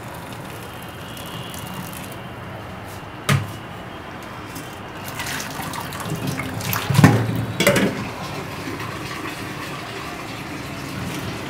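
Hot water and boiled vegetables poured from a steel pot through a mesh strainer, the water splashing and draining steadily. A sharp knock comes about three seconds in, and a louder run of knocks and clatter follows between about five and eight seconds in, loudest near seven.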